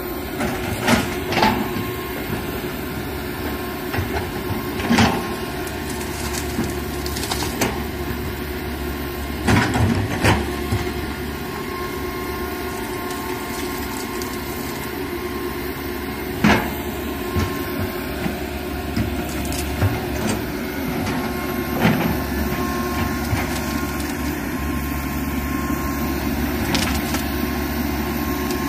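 Komatsu PC195 hydraulic excavator's diesel engine running steadily under load as it digs and clears brush, with scattered sharp knocks from the bucket working the ground and debris.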